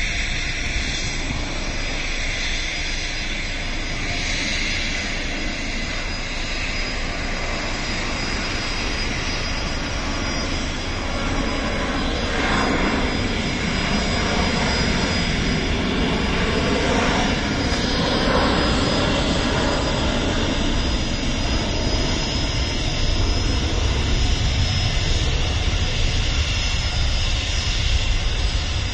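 Jet airliner taking off and climbing away, its engine noise a steady loud rumble. It grows louder about halfway through, with tones that slide in pitch as the aircraft passes.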